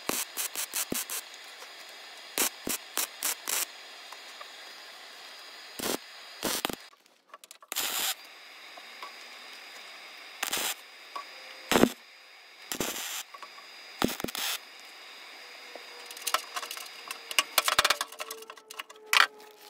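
Welding arc crackling on the steel cutting deck in short bursts: first a quick run of brief blips, then separate bursts of about half a second each, a second or two apart. Near the end the crackle comes faster and more ragged. These are welds being laid over the deck's cracked, weakened spots.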